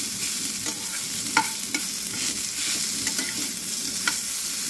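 Metal spatula stirring and scraping a potato, green pea and onion filling frying in a nonstick pan, over a steady sizzle. A few sharp clinks of the spatula on the pan, the loudest about a second and a half in and again near the end.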